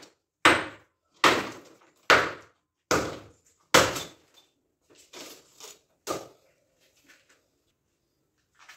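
Hammer blows striking concrete rubble at a steady pace of just over one a second: five hard strikes in the first four seconds, then a few lighter knocks, stopping about six seconds in.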